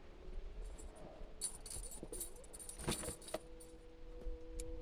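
Light metallic jingling and clinking in a few short clusters, strongest around two and three seconds in, over a faint steady hum.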